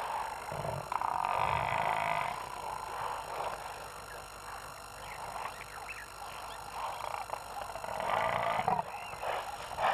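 Wild animal calls, loudest in two bouts about a second in and about eight seconds in, over a steady background hiss.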